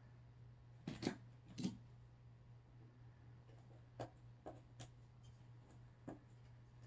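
Faint, scattered taps and scratches from a kitten's paws and claws on a plastic bucket and wall, about six in all, over a steady low hum.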